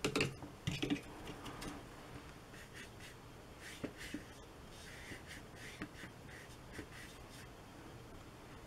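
Paintbrush strokes brushing and scratching faintly across wet watercolour paper, a flat brush laying in a wash. A few sharp clicks in the first second as the brush works the paint palette, and a few light ticks later.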